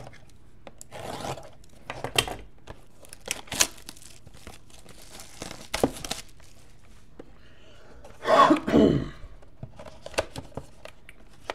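2015 Panini Playbook cardboard card box being opened and handled: scattered rustles, clicks and crinkles, with a louder scraping sound lasting about a second about eight seconds in.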